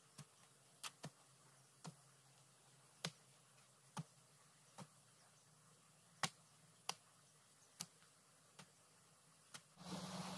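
Sharp, isolated clicks at irregular intervals, about one a second, over near silence. Shortly before the end a steady rushing noise starts abruptly.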